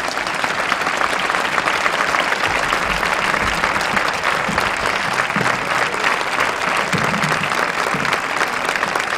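A large audience applauding: a steady, dense wash of many hands clapping after a speech.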